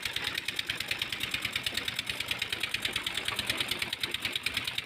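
An engine running steadily with a fast, even knock of about eleven beats a second.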